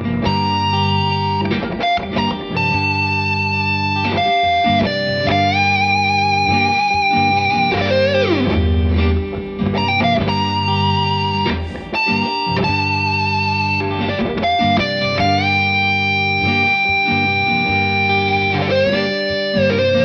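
Squier Bullet Stratocaster electric guitar playing a slow lead line: long held notes with vibrato and several string bends up in pitch, over a steady low backing.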